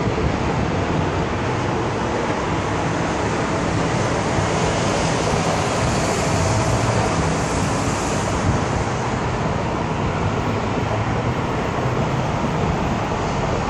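Motorboat passing at speed: a steady engine drone under rushing water and spray noise that swells for a few seconds midway.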